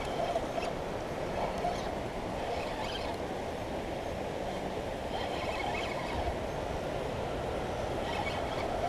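Steady rush of flowing river water, with a few faint, brief scratchy sounds on top.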